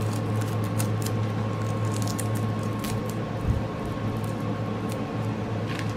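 Light crinkling and rustling of a diamond-painting canvas being unrolled and handled, with scattered small crackles over a steady low hum.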